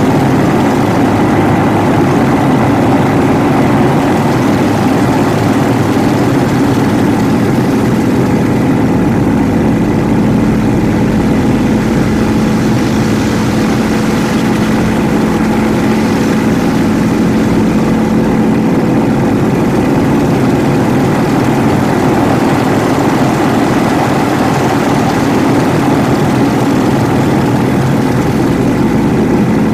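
Yak-52's nine-cylinder Vedeneyev M-14P radial engine and propeller running loud and steady; the engine note shifts a little about ten seconds in.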